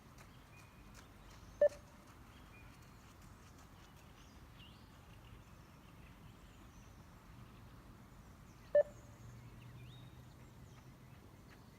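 Two short single beeps from a 20 m beep test (multistage shuttle-run fitness test) recording, about seven seconds apart, each marking the moment the runner must reach the line at the end of a level 4 shuttle.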